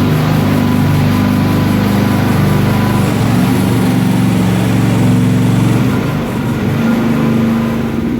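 Mini excavator's small engine running, its pitch shifting a little as the machine is worked, easing off slightly about six seconds in.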